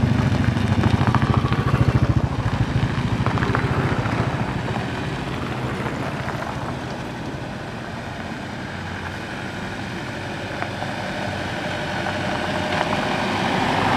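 A motorcycle engine passes close by with a rapid low pulsing, then fades away. Near the end, a pickup jeep's engine grows louder as it approaches.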